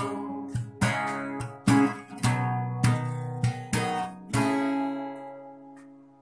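Acoustic guitar strummed in a run of chords, then a final chord about four seconds in, left to ring out and fade away.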